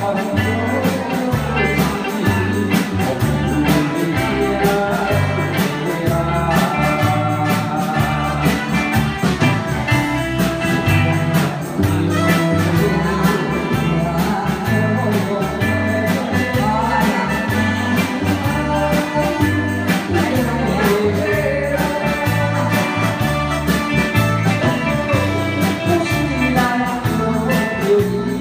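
Live band playing an upbeat song with a steady drum beat and bass, with voices singing through microphones over the PA.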